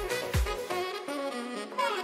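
Background music: a jazzy track with a horn lead over a kick-drum beat about twice a second. The drums drop out about half a second in while the horn line carries on, ending on a falling slide.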